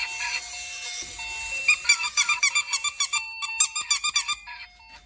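A fast run of short, high squeaks, about five a second, in the middle, over a thin melody of held electronic notes.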